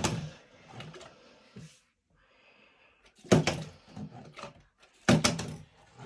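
Partly filled plastic water bottle thudding onto a windowsill in bottle-flip attempts: loud knocks about three seconds in and again about five seconds in, with a few lighter taps earlier.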